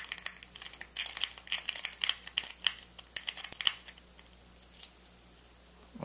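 Lock pick rake scraping rapidly in and out of the keyway of a pin-tumbler rim cylinder under tension, a fast run of metallic scratching ticks from the pins that stops after about three and a half seconds, with a few faint ticks after.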